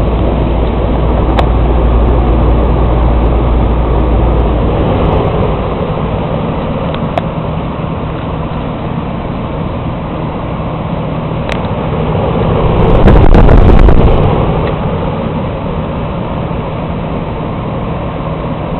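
Air Ease HVAC unit running with a steady whooshing hum; a deep low hum drops out about five seconds in, and a brief louder swell of noise comes about two-thirds of the way through.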